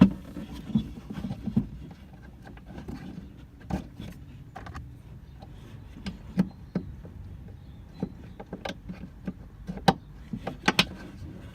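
Scattered sharp clicks and knocks of hard plastic parts being handled while a rear light fitting and its plastic clip are worked out of a car's light housing, over a low steady rumble.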